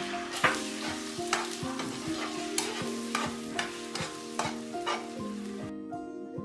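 Beaten eggs sizzling in a hot oiled nonstick frying pan while a fork stirs and scrambles them, its tines clicking against the pan about every half second. The sizzle cuts off suddenly near the end.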